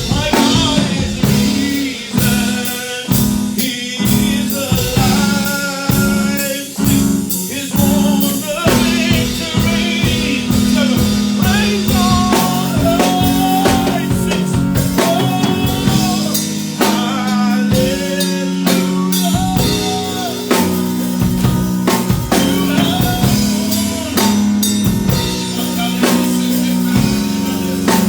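Live band playing a gospel worship song: drum kit with rimshots and bass drum under sustained low keyboard and bass notes, with a wavering melody line above.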